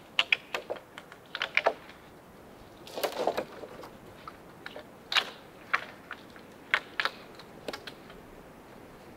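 Irregular sharp clicks and light knocks of wood being handled, about a dozen in all, with a short rustling cluster about three seconds in.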